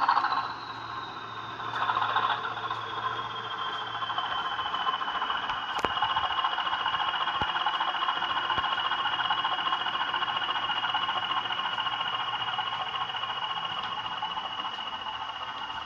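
Sound-fitted Bachmann Class 20 model locomotive's DCC sound decoder playing its diesel engine sound through the model's small speaker: a high turbocharger whistle falls in pitch over the first few seconds and then holds steady over a hissing engine note, with a single sharp click about six seconds in.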